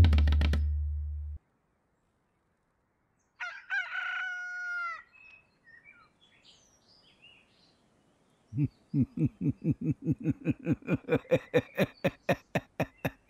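A low droning sound cuts off about a second in, and after a pause a rooster crows once, followed by a few faint bird chirps. Then a fast, even run of short pitched pulses starts, about four a second, and keeps going loudly to the end.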